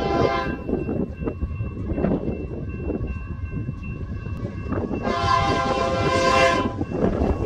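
Union Pacific locomotive's air horn sounding as the train approaches: one blast fades out about half a second in, and a second, longer blast comes at about five seconds and lasts nearly two seconds. Low wind rumble on the microphone runs underneath.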